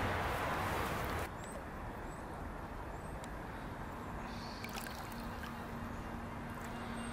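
Shallow canal water sloshing and splashing as a pike is released from a landing net, with a few sharper splashes about halfway through.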